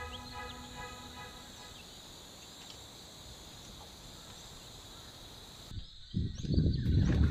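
The last of the intro music fades out, leaving a steady outdoor chorus of insects with a few short bird chirps. About six seconds in, a loud low buffeting noise breaks in over it.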